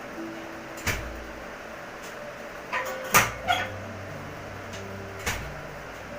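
A handful of sharp cracks and knocks from a chiropractic adjustment, the loudest just over three seconds in.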